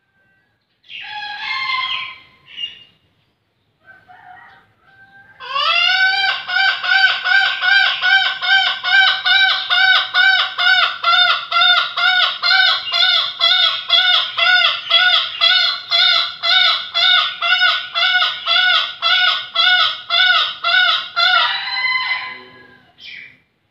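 Bekilus rooster crowing: a short call first, then one very long crow of quick, even pulses, two or three a second, lasting about seventeen seconds before it trails off.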